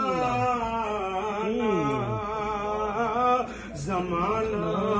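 Men's voices chanting Sufi zikr in long, drawn-out melodic phrases that slide up and down in pitch, with a brief pause about three and a half seconds in.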